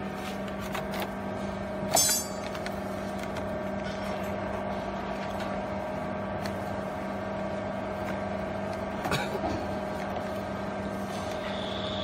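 Steady machine hum from a running motor in a baling workshop, with a sharp metallic clink about two seconds in and a smaller click near nine seconds.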